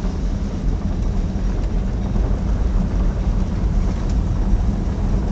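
Old classic sedan driving, heard from inside the cabin: a steady low rumble of engine and road noise.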